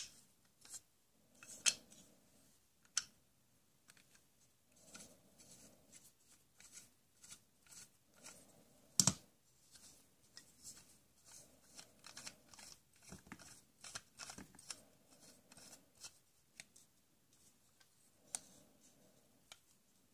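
Plastic toy screwdriver and plastic bolts being handled and turned in a plastic toy board, making a run of small irregular clicks and rubbing, with one sharper knock about nine seconds in.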